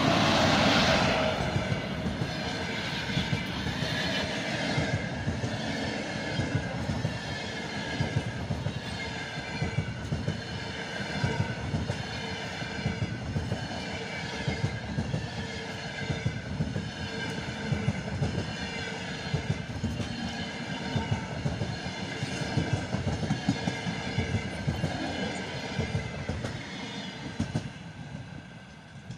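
Passenger train hauled by a ChS4 electric locomotive rolling past close by. The wheels click in a steady rhythm over the rail joints. It is loudest at the start as the locomotive goes by and falls away near the end as the last coach passes.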